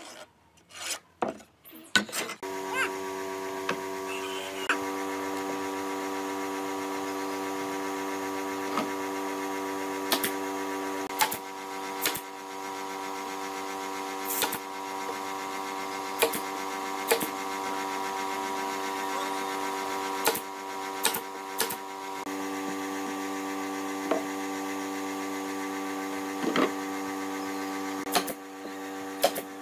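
A pneumatic brad nailer firing single shots into pine boards every second or two, about fifteen in all, over the steady hum of an air compressor motor that starts about two seconds in.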